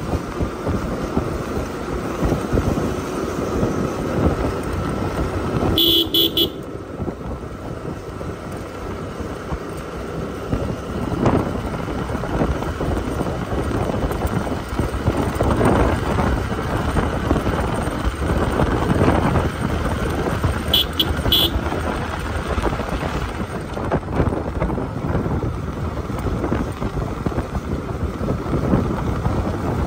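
Motorcycle engine running with road and wind noise while riding. A horn toots once about six seconds in, then twice in quick succession about twenty-one seconds in.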